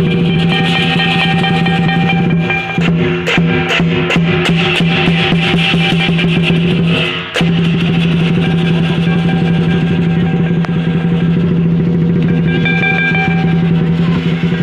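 Lion dance percussion playing loudly: a large drum beaten in a fast, continuous rhythm with clashing cymbals. A run of sharp, ringing cymbal crashes comes in the middle, then a brief dip, and the steady drumming resumes.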